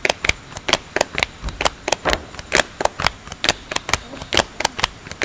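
A fast run of sharp clicks or snaps, about six a second, with stronger ones roughly every half second in a loose beat.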